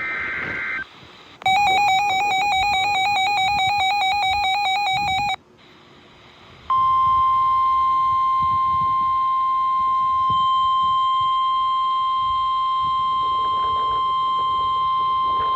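Emergency alert tones over NOAA Weather Radio. First the tail of a short two-pitch SAME data burst, then a warbling alert tone for about four seconds. After a brief gap comes a steady, loud single-pitch tone for about nine seconds: the 1050 Hz weather radio warning alarm that announces a warning message, here a severe thunderstorm warning.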